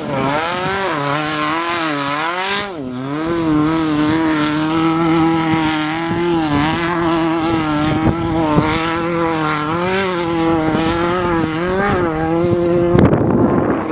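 Off-road race vehicle's engine running hard, its revs swinging up and down over the first few seconds and then holding fairly steady with small wobbles as the throttle is worked. A rush of noise comes in near the end.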